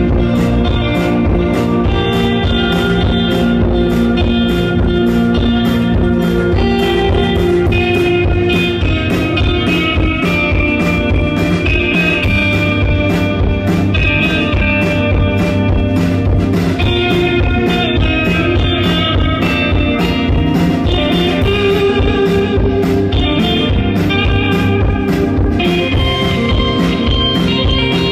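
A band playing music: guitar over a steady drum beat.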